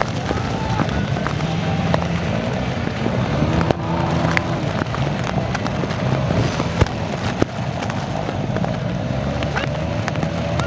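Honda CRF250L trail motorcycle engines running on a muddy off-road course, steady throughout, with scattered sharp clicks and knocks.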